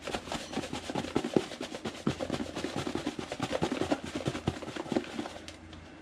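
Crappie fillets shaken with breading mix inside a lidded plastic food container: a fast, even rattle of fish and coating knocking against the container's walls, stopping about five and a half seconds in.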